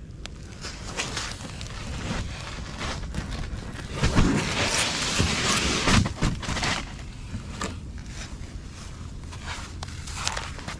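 An inflatable packraft being handled and set down on snow-covered ice: its fabric hull scrapes and rustles against the snow, with crunching steps and scattered clicks. The handling is loudest between about four and seven seconds in.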